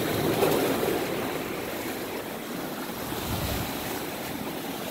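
Ocean surf washing among shoreline rocks, a steady rushing noise that is a little louder in the first second.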